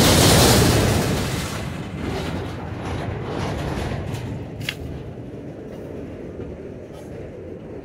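Freight train cars rolling past at close range, steel wheels on rail. A loud rush of noise at the start eases off after a couple of seconds, and there is a brief metallic squeal about halfway through.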